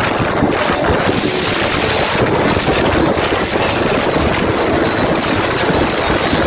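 Live band music and a cheering crowd at a concert, heard as a loud, dense, steady wash of sound with little clear detail, as from a phone microphone near the stage speakers.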